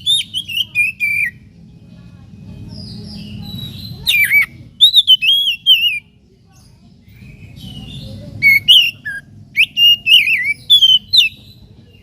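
Oriental magpie-robin (kacer) singing in three bouts of loud, varied whistled phrases with quick falling glides and sharp chattering notes, over a faint low hum.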